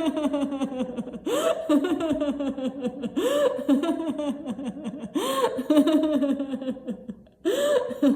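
A woman laughing without a break: runs of short 'ha-ha-ha' pulses that fall in pitch. Each run starts with a high rising-and-falling whoop, about every two seconds.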